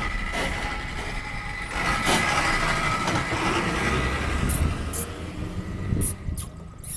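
A lorry passing on the road: a steady engine and tyre rumble with a thin high whine, swelling about two seconds in. A few sharp clicks come near the end.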